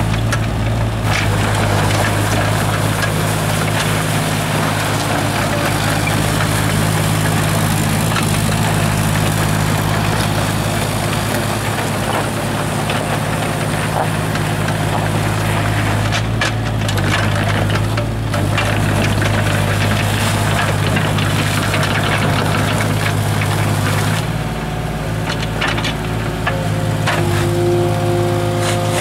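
JCB 8030 mini excavator's diesel engine running steadily as the machine travels and turns on its tracks. A higher whine joins in near the end.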